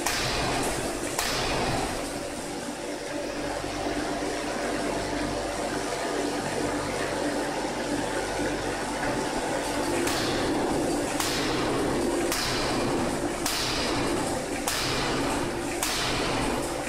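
Electro-hydraulic converted 3-ton forging hammer striking: one blow about a second in, then several seconds of steady machinery hum and hiss, then a run of blows at about one a second from about ten seconds in.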